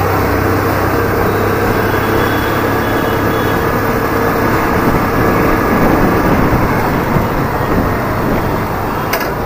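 Hero Destini 125 FI scooter's single-cylinder four-stroke engine running while riding, under steady road and traffic noise; its note shifts about six seconds in.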